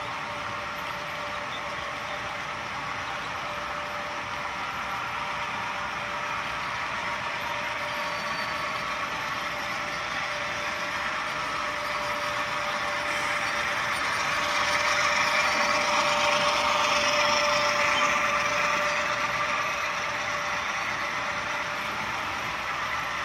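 HO scale model freight train rolling past on the curve: the steady rumble and hiss of its cars' wheels on the track, growing louder for a few seconds past the middle.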